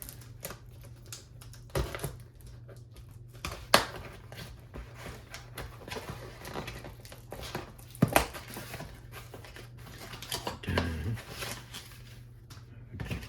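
Hands unpacking a box: scattered clicks, taps and light rustles of cardboard and packaging, with two sharper knocks about 4 and 8 seconds in.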